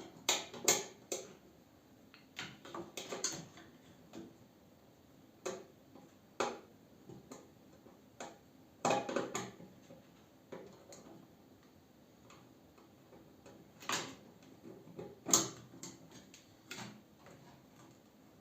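Irregular clicks, taps and knocks of hand tools and small metal parts being handled while working on a microwave oven, with a few louder knocks scattered through.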